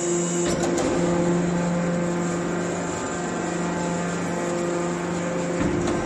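Hydraulic power unit of a three-ram scrap baler running: an electric motor and hydraulic pump giving a steady hum.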